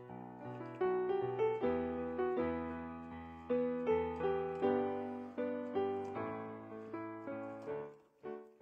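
Instrumental piano music: chords struck about twice a second and left to fade, dipping briefly near the end.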